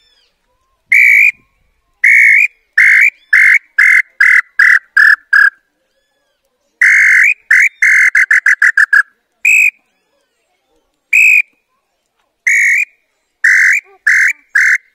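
Nambu (tinamou) bird-call whistle blown in phrases: a long whistled note, then a run of shorter notes that come faster and drop slightly in pitch, imitating a tinamou's call. The phrase comes several times, with a few single notes between.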